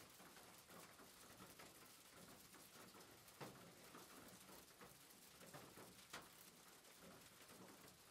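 Near silence: faint hiss with a few soft clicks, the clearest about three and a half and six seconds in, from a laptop RAM module being handled.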